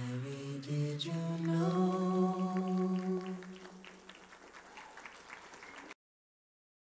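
A single voice singing the closing notes of a song: a few short notes, then one long held note that fades away. The sound then cuts off to silence about six seconds in.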